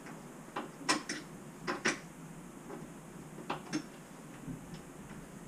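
Metal spanner clinking against the bolts and frame of a bus driver's seat as it is being unbolted: a few short, faint clinks, mostly in pairs.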